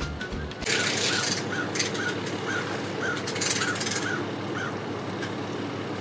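Background music cuts off under a second in. Then a bird calls over and over, about two short calls a second for several seconds, over the low steady running of a Sea-Doo personal watercraft engine and water noise.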